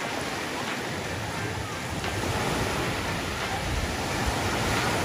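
Waves washing onto a sandy beach, a steady wash of surf with wind rumbling on the microphone.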